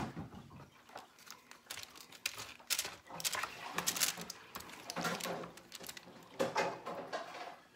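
Small plastic food-storage containers and food being handled on a counter: scattered light clicks and knocks.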